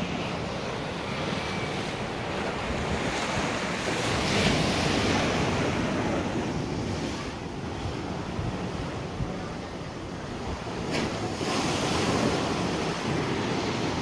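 Strong wind buffeting the microphone over choppy waves washing on the water, swelling in gusts about four seconds in and again near the end.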